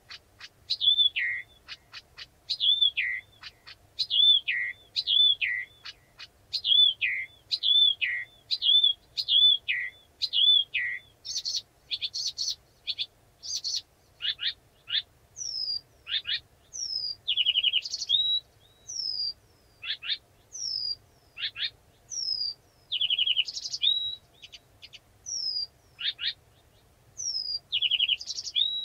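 Blyth's reed warbler singing slowly in repeated phrases: for the first half one phrase, a sharp note looping into a drop in pitch, comes back about eight times; then the song switches to varied phrases of clear down-slurred whistles and short buzzy notes, each repeated a few times.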